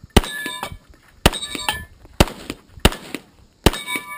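Five pistol shots about a second apart, each followed by the ringing clang of a struck steel target plate.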